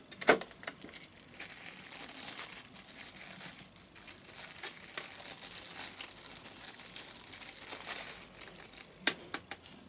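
Packaging wrapping around a model locomotive crinkling and rustling as it is unwrapped by hand, with a sharp click just after the start and a few more clicks near the end.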